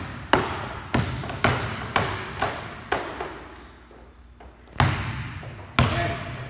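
Basketball dribbled on an indoor court floor: six bounces in a steady rhythm about half a second apart, each with a short echoing tail, then a pause of nearly two seconds and two more bounces a second apart.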